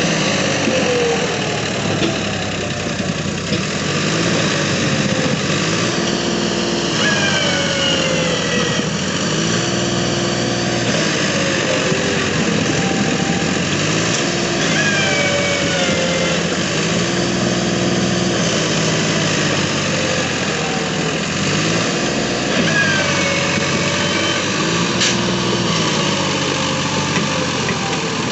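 Massey Ferguson 241 DI tractor's three-cylinder diesel engine running under heavy load, revving up and back down about seven times as it strains to haul a loaded trailer through soft, muddy ground.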